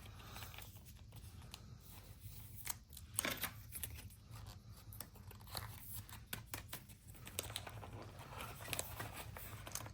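Faint rustling and light clicks of trading cards and their packaging being handled, scattered unevenly, a little louder about three seconds in.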